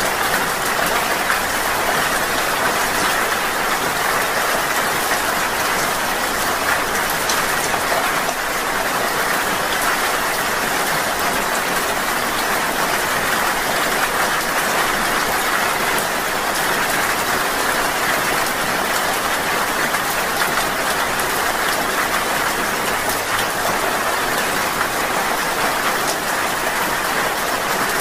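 Rain falling steadily, an even hiss of many drops that keeps up without a break.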